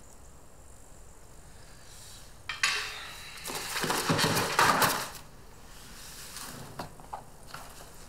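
Laboratory glassware clinking and rattling, starting with a sharp knock about two and a half seconds in and loudest around four to five seconds in, then a few small clicks.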